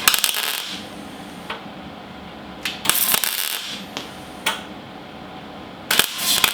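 Wire-feed (MIG) welder laying short tack welds on the sheet-steel floor pan: three crackling buzzes of about half a second each, a few seconds apart, with single sharp clicks between them.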